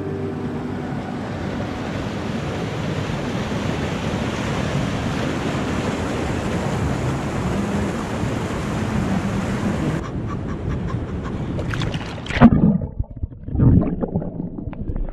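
Rushing stream water, a steady even roar. About ten seconds in it cuts off abruptly, followed by two loud buffets on the microphone.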